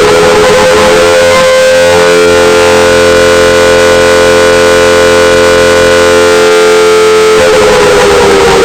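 Civil defense siren tone, loud, holding steady at its top pitch, then beginning to wind down in pitch near the end, over a harsh hiss.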